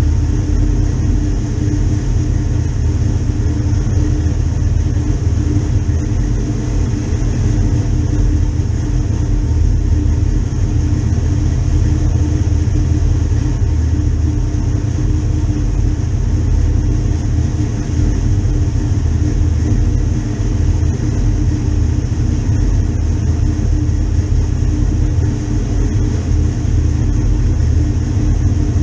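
Vehicle engine idling steadily, loud and low-pitched, with no change in speed.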